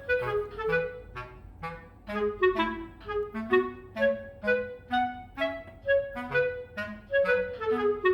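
Background music: a light tune of short, separate notes over a simple bass line at a steady pace.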